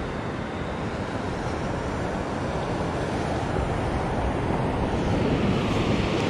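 Wind buffeting the microphone over the rush of breaking surf: a steady noise with a gusty low rumble, growing louder toward the end.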